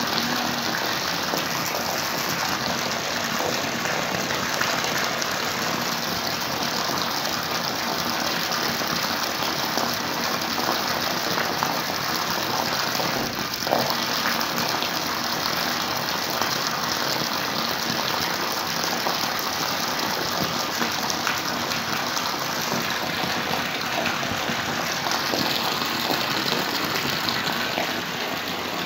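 Steady rush of running water pouring into a stinging-catfish tank, even and unbroken.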